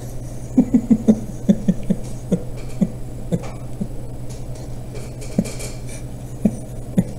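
A man chuckling quietly: a quick run of short laughs about half a second in, then scattered single chuckles, over a steady low hum.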